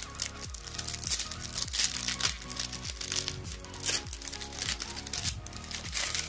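Foil wrapper of a Match Attax Extra trading-card booster pack being torn open and crinkled as the cards are pulled out, with background music playing, its steady beat underneath.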